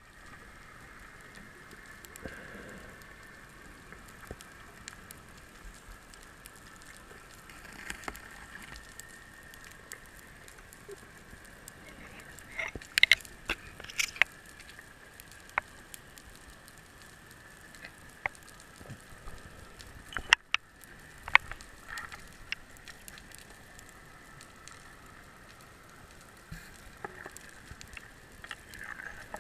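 Underwater ambience on a scuba dive over a wreck: a steady hum with scattered sharp clicks and crackles, a cluster of louder clicks around the middle.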